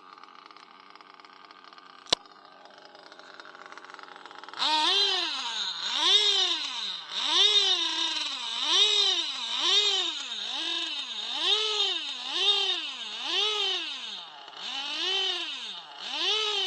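Small RC model engine that starts up suddenly about four and a half seconds in and then surges, its pitch rising and falling about once a second while the throttle is held steady: a throttle runaway that the owner blames on a faulty throttle servo. A single sharp click comes about two seconds in.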